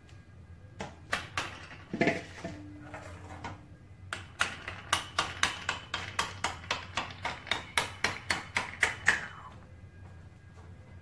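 Stainless-steel idiyappam press (sevanazhi) being closed: a few metal knocks as the lid goes on, then its threaded lid and plunger rod turned by hand, making a regular run of short metallic clicks, about four a second, for about five seconds.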